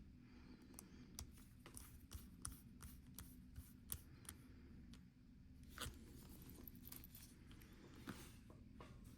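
Faint, scattered small clicks and light scraping as tiny bezel screws are fitted and driven into a Casio G-Shock G-2300 watch, most of them in the first few seconds, a couple more later.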